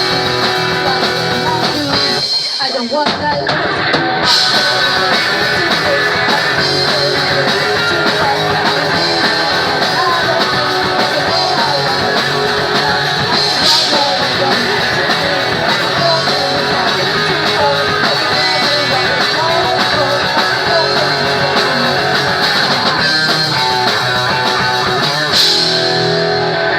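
Punk rock band playing live: loud electric guitars and full band, with a short break in the low end about two seconds in.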